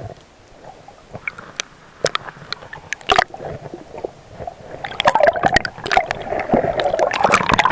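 Water gurgling and sloshing around a camera held underwater in shallow sea, with scattered sharp clicks and crackles. From about five seconds in it grows louder and busier, a dense crackling slosh as the camera moves up toward the surface.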